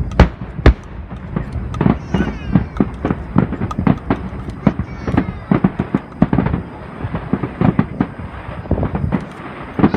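Fireworks display: a rapid, irregular run of bangs and crackling bursts, with two very loud booms right at the start.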